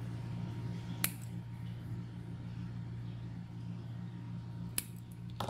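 Small scissors snipping excess cotton wick on a rebuildable dripping atomizer: three sharp snips, one about a second in and two near the end, over a steady low hum.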